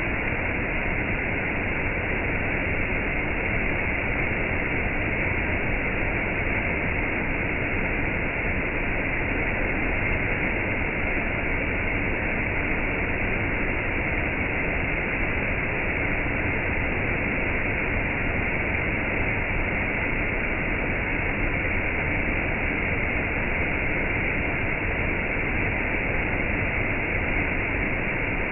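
Steady rushing of falling water, rain and a waterfall, an even hiss with no breaks or separate drops standing out.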